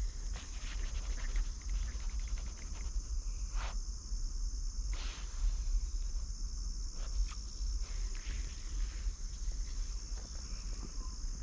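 Outdoor ambience: a steady high insect buzz with a constant low rumble, and scattered knocks and scrapes such as steps on rocks.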